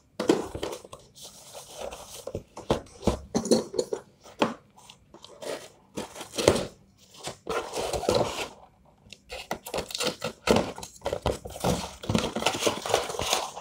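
Cardboard packaging being handled: irregular rustling, scraping and tearing as a cardboard sleeve is cut open and a boxed headset is pulled out of its shipping carton.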